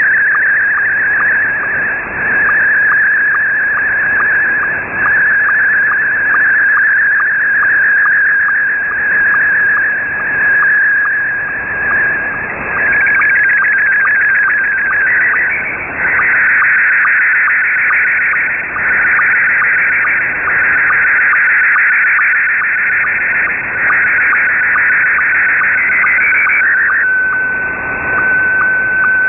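Slow-scan television (SSTV) picture signal from a shortwave pirate station, heard as single-sideband (USB) receiver audio: a warbling tone shifting quickly in pitch, with a regular sync tick, over shortwave hiss. It carries the last scan lines of a picture as it is decoded, and near the end it gives way to a single steady tone.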